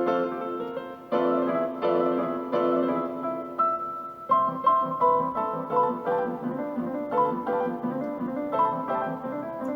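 Background piano music: chords held for the first few seconds, then a lighter run of repeated notes from about four seconds in.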